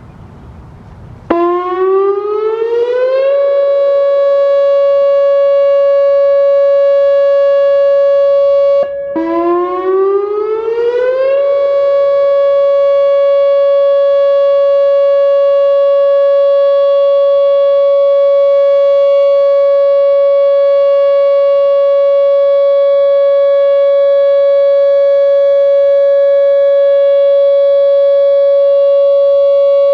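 Whelen WPS-2910 electronic outdoor warning siren sounding a steady alert tone of about 560 Hz. It starts about a second in and rises in pitch over two seconds to a steady tone. It cuts out briefly, rises again the same way, and then holds steady.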